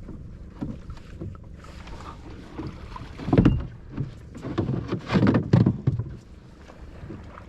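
Sounds aboard a small fishing boat at sea: a steady low rumble with irregular louder knocks and splashy bursts about three seconds in and again around five to six seconds in.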